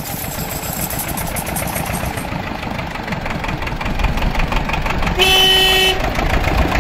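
Small tractor's engine running with a steady pulsing rumble, louder from about four seconds in as it comes close. About five seconds in, a vehicle horn sounds one steady note for under a second.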